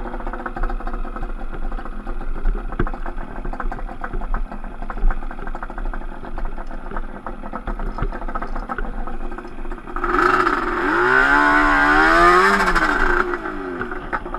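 Yamaha Banshee 350 twin two-stroke ATV engine running at low revs with scattered clatter. About ten seconds in it revs up hard and back down over roughly three seconds.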